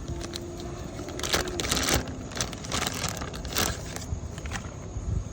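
Scattered light clicks, clinks and rustles of hands handling tools and parts.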